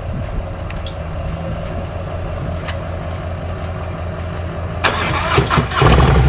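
Harley-Davidson V-twin touring motorcycle idling, then about five seconds in a starter cranks briefly and a V-twin catches and runs, louder and deeper than before.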